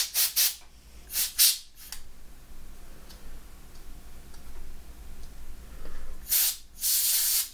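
Can of compressed air sprayed in hissing bursts onto a laptop heatsink: about four quick puffs in the first two seconds, then a longer blast about six seconds in, with another starting near the end.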